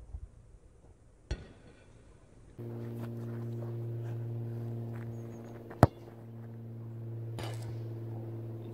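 A football kicked on grass, a sharp thud about six seconds in, with a fainter knock about a second in and another near the end. Under the kick, a steady low hum with a clear pitch starts abruptly about two and a half seconds in.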